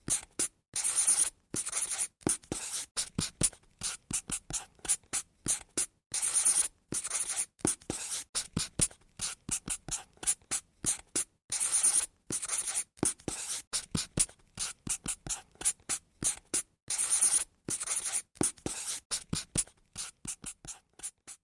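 Pen scratching on paper while drawing: many quick short strokes, with a longer, louder stroke about every five to six seconds.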